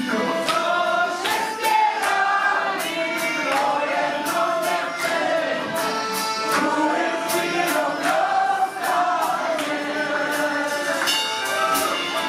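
Live folk band playing: several voices singing together over accordion, contrabass balalaika and drum kit, with a steady beat.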